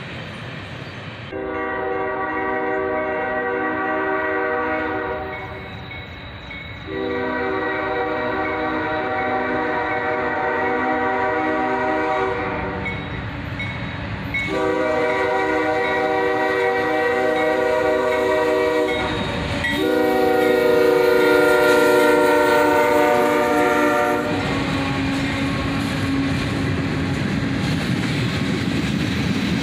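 Air horn on the lead locomotive of a CSX freight train, a GE ES44DC, sounding four long blasts, the last two nearly run together. After the horn stops, the locomotives and cars go by with a steady rolling noise.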